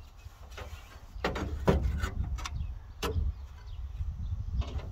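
A 1964 Chrysler's radiator being worked up and out of the engine bay: metal scraping and knocking against the radiator support in a few short bursts, the loudest about a second and a half in, another around three seconds in and one near the end.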